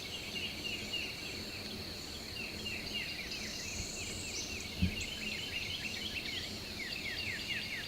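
Morning woods and field ambience: a bird chirping in a fast, steady series of short downward notes, over a faint steady high whine like insects. A single soft low thump comes a little before five seconds in.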